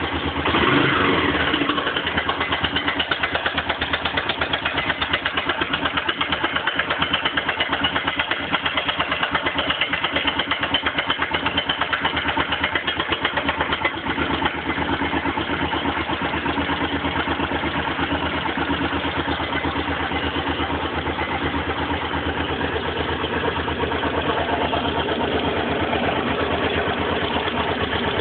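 Suzuki DR 750 Big's big single-cylinder engine idling with a rapid, even knocking from the top end, briefly louder about a second in. The knock comes with the engine cold and fades once warm, which the owner suspects is piston slap or rod knock.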